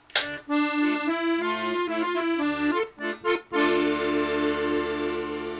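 Accordion music playing a folk-style tune, ending on a long held chord with a pulsing note.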